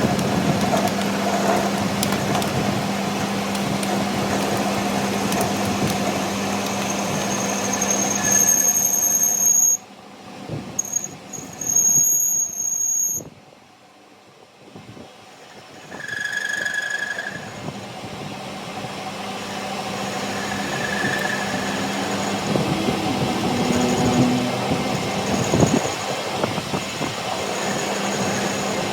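Shop machinery running with a steady motor hum while metal is worked. A high-pitched metal squeal comes in about eight seconds in and lasts several seconds. The sound then drops away briefly before the machine noise builds up again.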